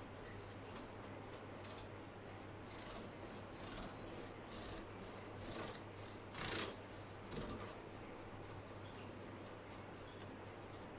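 A brush scrubbing over a fridge's metal condenser fins in repeated short strokes, with one louder stroke about six and a half seconds in.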